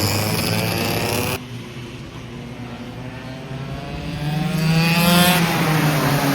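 Go-kart engines running. About 1.4 s in the sound cuts abruptly to a quieter stretch, then a kart engine rises in pitch and loudness, loudest about 5 s in, before another abrupt change.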